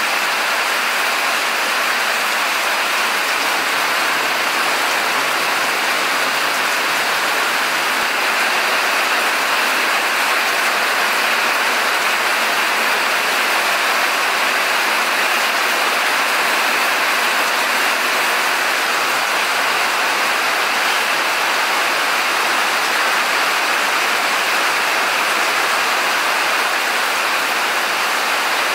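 Steady rain falling, a constant even hiss with no break or change.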